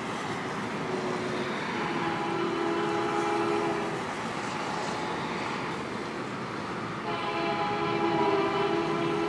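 Diesel locomotive air horn on Union Pacific SD70M #3917, sounding two long blasts for a grade crossing: one about a second in, lasting about three seconds, and another starting about seven seconds in, over a steady background hum.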